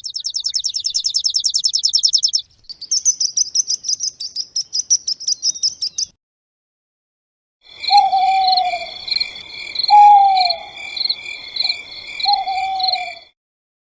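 Recorded bird calls: a fast, high trill for about two seconds, then a second, buzzier trill with higher notes. After a short pause comes a run of evenly pulsing high chirps, with three falling, hoot-like lower calls among them.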